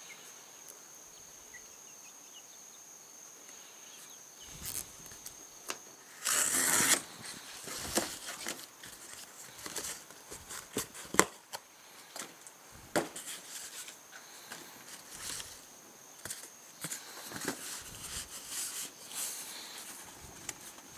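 Cardboard sheets being handled on a wire dog crate: scraping and rustling with sharp knocks and clicks, starting after a quiet few seconds, with a longer, louder scrape about six seconds in.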